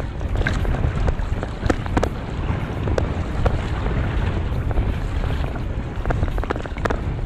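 Wind buffeting the microphone on a small boat at sea, with scattered sharp knocks and taps from the net and gear being handled by hand.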